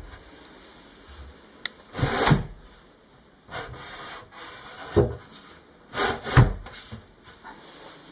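A removable wooden shelf board being lifted out and fitted back in place: a series of wooden knocks and scraping rubs. There is one group about two seconds in and more in the second half.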